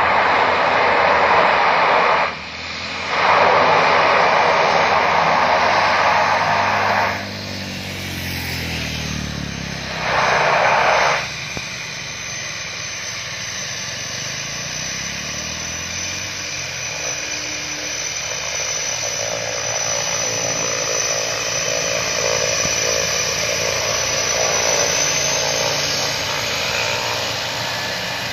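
De Havilland Canada DHC-6 Twin Otter's twin turboprop engines as the plane rolls down the runway and taxis in: loud spells of propeller noise in the first eleven seconds or so, then a steadier, quieter engine sound with a thin high turbine whine that rises slightly near the end.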